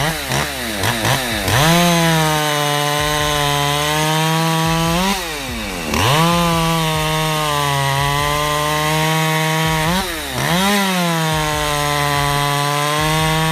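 Hulan Pro PR 5020 automatic tree-cutting machine's 50cc chainsaw engine revving up and held at high revs through cuts, three long stretches of several seconds each. Between them the engine drops back briefly and then rises quickly in pitch again.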